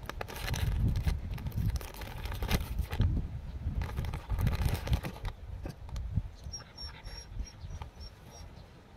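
Clear plastic snack bag crinkling and rustling in irregular bursts as a dog noses into it and eats, over a low rumble. Near the end the rustling eases and a faint run of short high chirps repeats several times.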